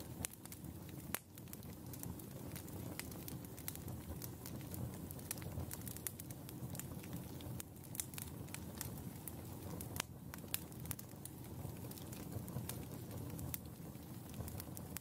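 Wood campfire crackling, with irregular sharp pops and snaps over the steady low rush of the flames.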